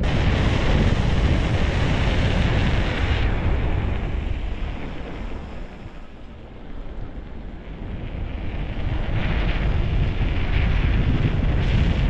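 Wind buffeting the microphone on a moving enduro motorcycle, a loud, low rumble with the bike's running under it. It eases about halfway through and builds again.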